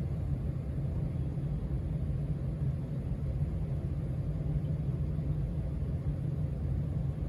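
Casablanca Stealth ceiling fan turning, a steady low rumble of its motor and the air it moves.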